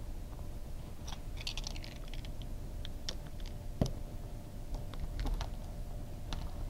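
Faint scattered clicks and crackles of plastic zipper pile weatherstrip backing being pressed and snapped into the T-slot groove of a window frame, with one sharper click about four seconds in. The clicking is the sign of the backing locking into the groove.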